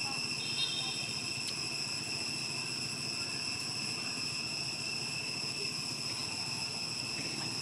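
Steady, high-pitched insect chorus holding one unbroken tone, with a brief higher trill about half a second in.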